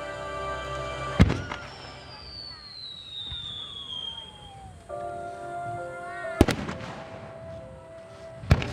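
Aerial firework shells bursting: three sharp, loud booms about five seconds and then two seconds apart, the first followed by a long falling whistle. Background music plays steadily underneath.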